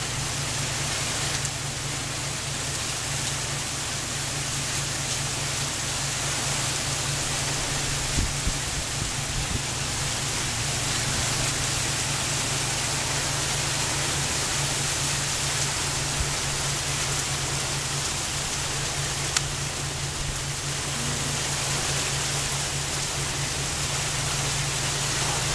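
Heavy rain falling steadily, an even hiss, with a steady low hum underneath and a few single drops ticking close by.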